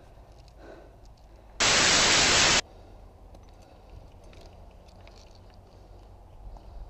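A loud burst of harsh static, like white noise, about a second long, that cuts in and out abruptly, over faint outdoor background noise.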